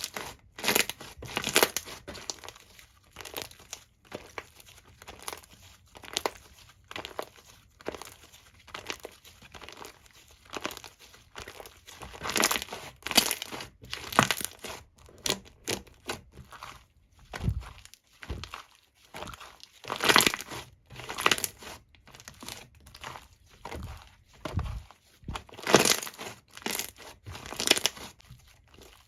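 Foam slime being squished and pulled by hand, giving a run of irregular crinkling, crackling squishes roughly every second or two.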